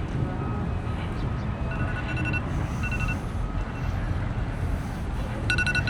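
Street ambience: a steady low rumble of city traffic, with short high notes of background music now and then, the clearest near the end.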